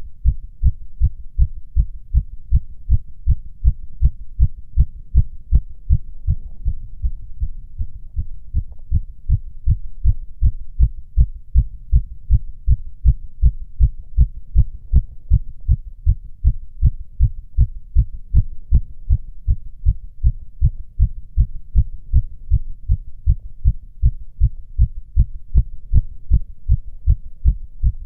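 A man's heartbeat heard through a stethoscope: short, low lub-dub beats in a fast, steady, regular rhythm. It is a fast heart rate (tachycardia) with nothing abnormal, in the owner's judgement.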